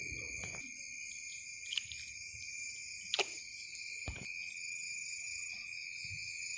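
Steady high-pitched chorus of night insects, in several unbroken bands, with a few brief clicks and one sharper knock about four seconds in.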